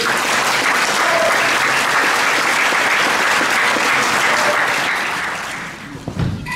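Audience applauding, beginning abruptly and dying away near the end.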